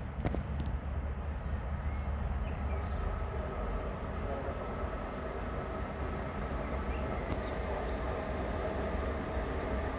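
Freight train of Eas open wagons rolling past with a steady low rumble and a faint steady whine above it. A few sharp clicks come near the start and again about seven seconds in.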